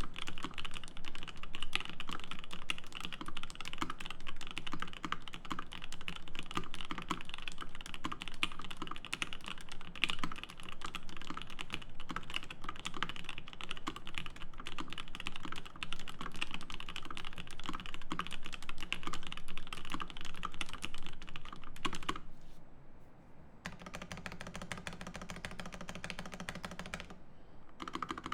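Fast, continuous typing on a Bauer 8008 mechanical keyboard with lubed Gateron Ink linear switches, an aluminium plate and GMK keycaps: a dense stream of deep, muted keystrokes. About three-quarters of the way through, the typing stops for several seconds and only a faint low hum remains.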